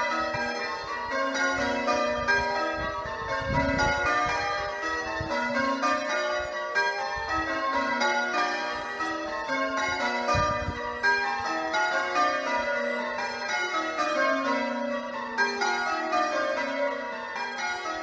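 A ring of eight church bells, six Warner bells of 1913 with two newer trebles, being rung in change ringing. The bells strike one after another in a steady even rhythm, in repeated descending runs that shift order from row to row.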